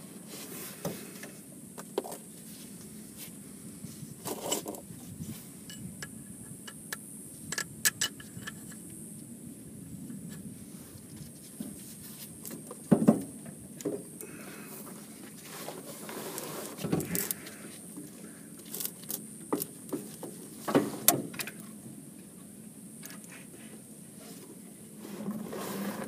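Scattered metallic clinks, scrapes and knocks of hand work as a new starter motor is fitted under a 1971 VW bus, with louder knocks about halfway through and again about three quarters of the way through.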